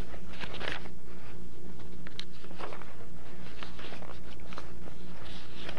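Sheets of paper rustling and crinkling as a stack of printed pages is leafed through by hand, in irregular crackly bursts, over a steady low electrical hum.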